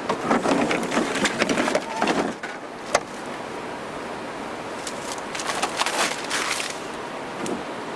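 Handling noises: a run of clatter and rustling, one sharp click about three seconds in, then more rustling, over a steady outdoor hiss.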